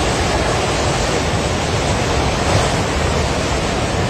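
Muddy floodwater rushing in a flash flood: a loud, steady, unbroken rush of turbulent water.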